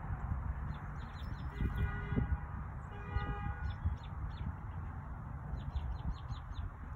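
Small birds chirping in short, quick falling notes, in clusters about a second in and again near the end, over a low rumble of wind on the microphone. Twice, around two and three seconds in, a longer pitched call from another bird sounds.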